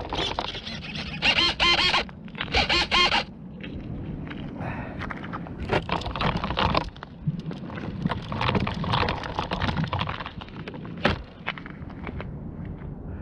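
A small electric RC airplane motor whines in two short bursts early on. Then comes a rough stretch of rushing air with scrapes and a few sharp knocks, the sound of the model airplane coming down and crashing.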